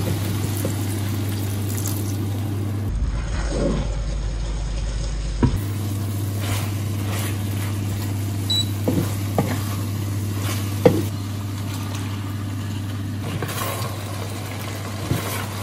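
Vegetables and sliced sausage sizzling in a nonstick frying pan, with short clicks and scrapes of a wooden spatula as they are stirred, over a steady low hum.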